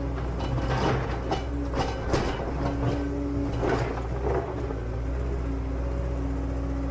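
Small electric motors of radio-controlled construction models running with a steady low hum and a whine that starts and stops. A run of scraping and clattering, like soil or gravel being moved, fills roughly the first four and a half seconds.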